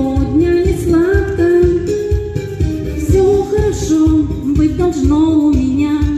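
A woman singing a pop ballad into a microphone over backing music with a steady beat.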